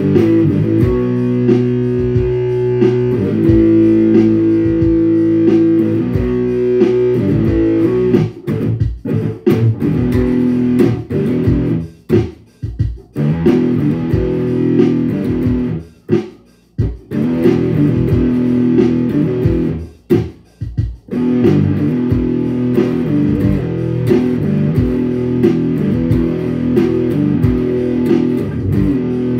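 Electric guitar in D G D G Bb D tuning improvising riffs in E minor, mostly held notes in the low and middle register, with a few short pauses in the middle.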